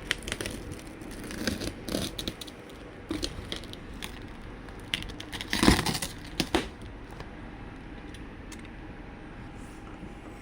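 Cardboard box and packaging being opened and handled: scattered crinkling, tearing and scraping with short knocks, the loudest a bump about five and a half seconds in, then quiet handling for the last few seconds.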